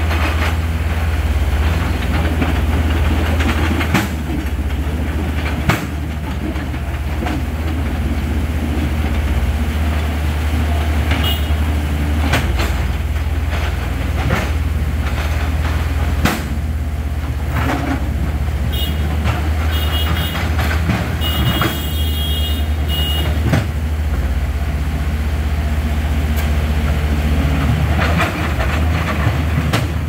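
Diesel engines of two tracked excavators, a Komatsu PC130 and a Hitachi, running steadily with a deep drone as they work boulders in a rushing river. There are a few sharp knocks of a bucket on rock and some brief high squeaks a little past the middle.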